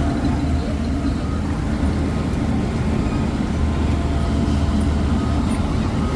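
Heavy diesel engine running steadily with a low, even drone.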